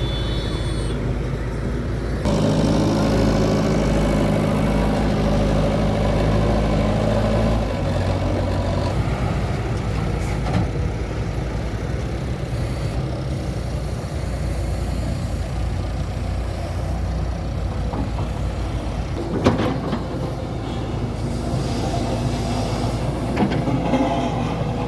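Heavy earthmoving machine's diesel engine running under load. It gets louder about two seconds in and shifts pitch around eight seconds, with a single sharp knock a little before twenty seconds.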